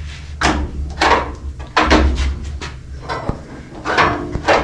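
A rusty, stiff handle in the 1962 Willys wagon's body being worked back and forth after a dose of penetrating oil: about six short creaks and clunks of metal, with one sharp click near the middle.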